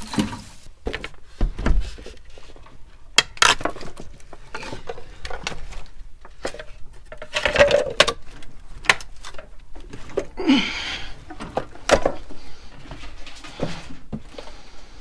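Irregular knocks, scrapes and clatter of loose wooden boards and household junk being pushed aside and stepped through.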